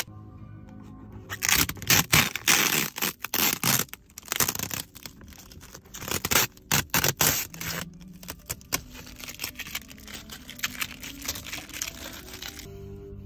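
Protective plastic film being peeled off a new car's interior trim and crumpled: loud crackling, tearing rustles in quick bursts for several seconds, then lighter crinkling that stops shortly before the end.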